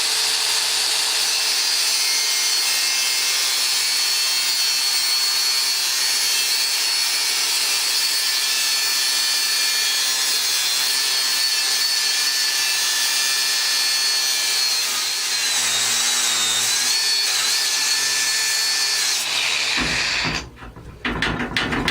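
DeWalt 60-volt cordless cutoff tool, its abrasive wheel cutting through thick steel plate and weld: a steady high whine over a grinding hiss. It stops about 20 seconds in, followed by a few metal clanks.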